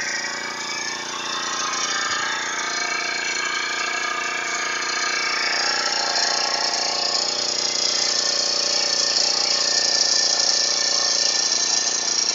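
A small petrol engine running steadily at an even speed, getting a little louder through the sound.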